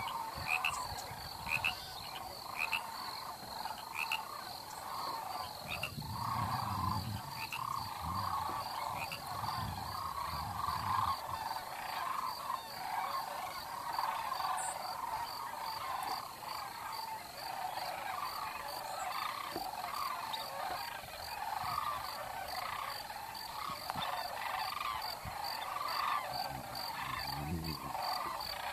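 A dense, continuous chorus of many overlapping animal calls, with a steady high note pulsing about twice a second above it. Short high chirps sound now and then in the first few seconds.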